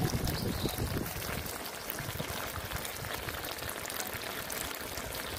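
Stew simmering in a black pot over a charcoal fire: a steady bubbling, crackling sizzle. A low rumble dies away in the first second and a half.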